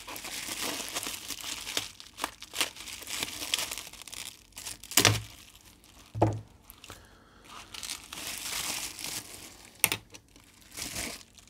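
Bubble wrap crinkling and rustling as it is cut open and pulled off a clear plastic case, a dense run of small crackles, broken by a few sharp knocks about five, six and ten seconds in.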